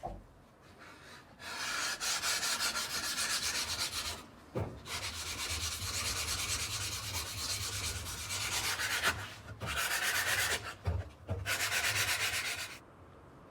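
Abrasive sanding on the knife, in four long spells of steady rasping with short breaks between them.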